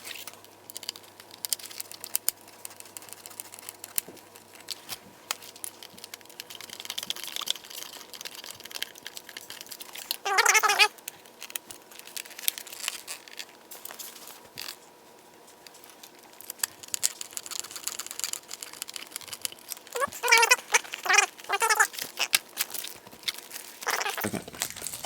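Hand work on turn signal parts: screws being driven in, with scattered small clicks, taps and rustles of plastic and wire. A short pitched squeak about ten seconds in, and a quick run of squeaks a little past twenty seconds.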